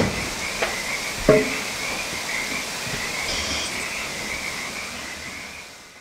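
Stationary steam engine running, with a steady high-pitched tone over a noisy background and a few sharp knocks in the first second and a half; the sound fades out near the end.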